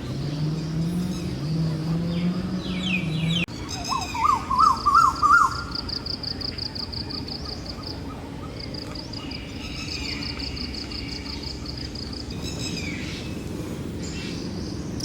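Outdoor wildlife ambience. For the first few seconds a low call wavers up and down in steps. After an abrupt break, a loud bird call warbles rapidly up and down. A steady, high-pitched pulsing insect trill then carries on with scattered bird chirps.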